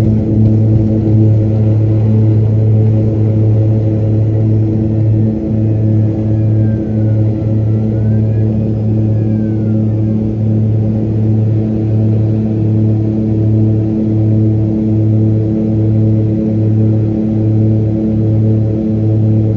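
Light propeller aircraft's engines at takeoff power, heard from inside the cabin: a loud, steady low drone with a slow pulsing beat about once a second, through the takeoff run and climb-out.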